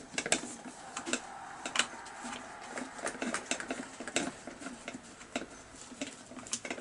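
A hex key turning out a carburettor mounting bolt on a Chinese two-stroke chainsaw, then small plastic engine parts being handled: irregular light clicks and taps of metal and plastic.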